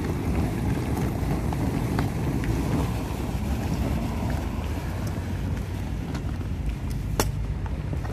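Small wheels of two hard-shell suitcases rolling over rough asphalt, a steady low rumble with faint ticks, and one sharp click about seven seconds in.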